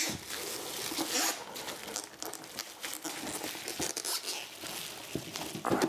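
Bubble wrap crinkling and rustling, with cardboard rubbing and scraping, as a bubble-wrapped inner box is pulled up out of a cardboard shipping box.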